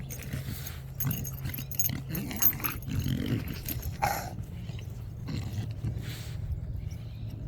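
English bulldog making short, irregular noisy sounds while playing with a frisbee, with one brief higher-pitched whine about four seconds in. A steady low hum runs underneath.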